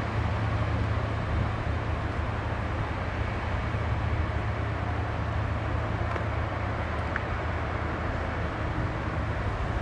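Small tour-train locomotive running at low speed with a steady low engine drone as it comes along the track.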